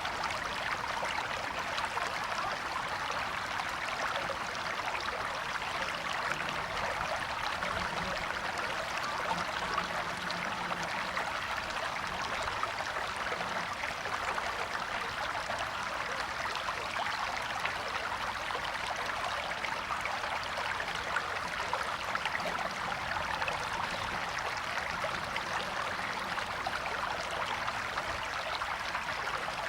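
A river or stream flowing steadily over rocks, an even rushing and babbling of water.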